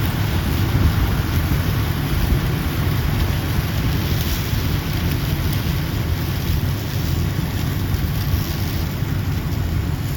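John Deere 4400 combine running while harvesting soybeans: a steady low engine drone under a dense, even rushing noise.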